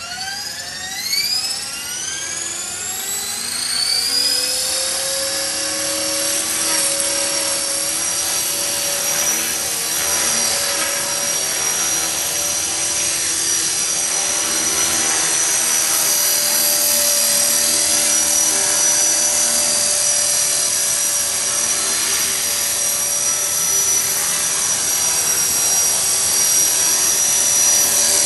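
EXI 450 electric RC helicopter spooling up: the motor whine rises steeply in pitch over the first few seconds, then holds a steady high whine with rotor noise at flying speed.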